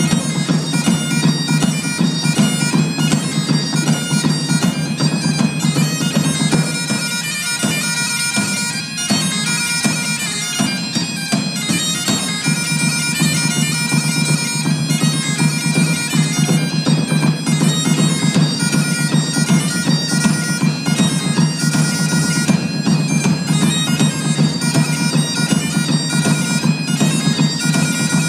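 Bagpipes playing a tune over their steady drone, with drums beating along.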